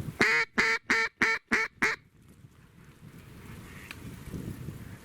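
Six loud quacks in quick succession, each shorter than the last, in the pattern of a hen mallard's descending call. A faint steady background follows.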